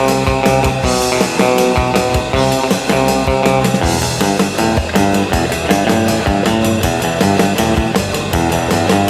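Skywing Stratocaster copy electric guitar playing a surf-rock melody in a clean, twangy tone over a rock backing track with drums and bass.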